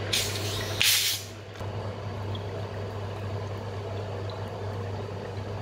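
Cap twisted off a plastic Coca-Cola bottle, releasing two short, sharp hisses of escaping carbonation in the first second, then cola poured into a mug and fizzing, over a steady low hum.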